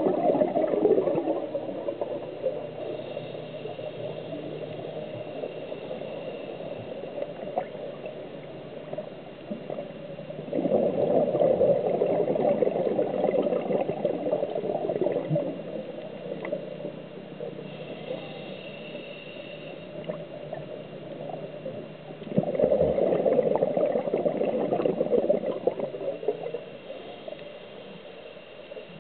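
A scuba diver's exhaled bubbles bubbling up from the regulator, recorded underwater. A burst ends about a second in, and two more come about twelve seconds apart, each lasting a few seconds, with quieter stretches between them as the diver breathes in.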